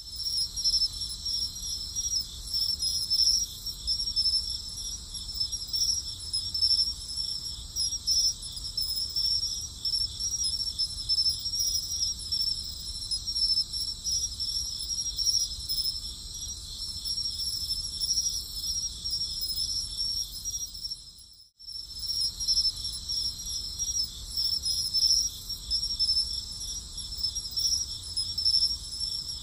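A steady night chorus of crickets, a dense, high, pulsing chirring. It cuts out for a split second about two-thirds of the way through, then picks up again unchanged.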